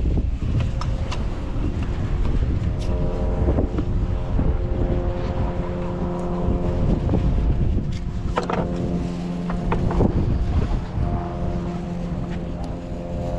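Wind buffeting the microphone, with a steady engine hum joining in a few seconds in and a few light clicks of fishing tackle being handled.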